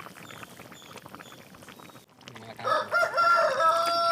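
A rooster crows once, a loud, long held call starting about two seconds in, over the faint bubbling of a simmering pot of curry.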